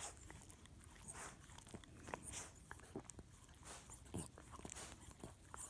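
Small Schnauzer-Yorkie mix dog licking a child's hand: faint, short licking smacks at irregular intervals.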